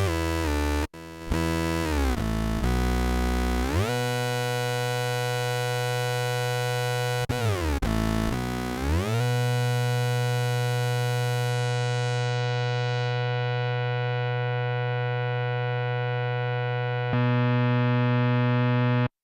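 Electric bass played through a Dunlop MXR MB301 Bass Synth pedal, giving a synth-bass tone. A few short notes and slides down in pitch and back up are followed by a long held note whose bright top slowly fades away, and the note gets louder near the end.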